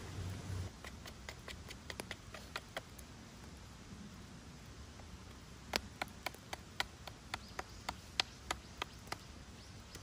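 A knife whittling a wooden stick, making crisp clicks as each stroke bites the wood. The clicks are scattered at first, then come in a steady run of about three a second from roughly halfway in.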